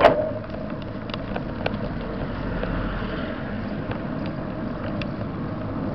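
Ride-along noise of a bicycle in motion: wind on the microphone and tyres rolling over the road surface, with scattered light clicks and rattles. A sharp knock comes right at the start.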